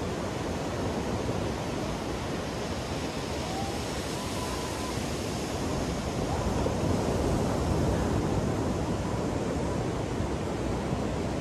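Ocean surf breaking on a sandy beach: a steady wash of waves, swelling louder a little past halfway through as a larger wave comes in.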